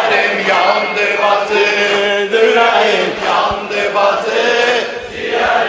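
Male chanting of a Shia mourning lament (noha) in Azerbaijani, with a steady low hum underneath.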